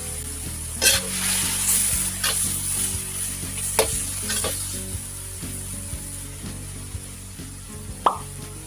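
Beef cubes sizzling in a wok while a ladle stirs and scrapes them around the pan, with several scrapes in the first five seconds and one short sharp sound near the end.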